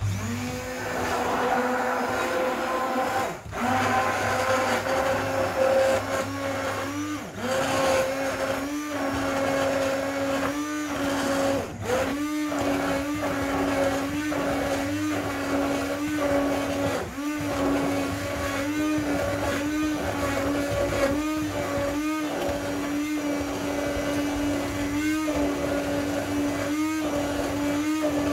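Electric immersion hand blender switched on and running in a bowl of egg mixture, with a steady motor hum. The hum dips and recovers about once a second as the blade is worked up and down through the liquid, with two short drops near 3.5 s and 12 s.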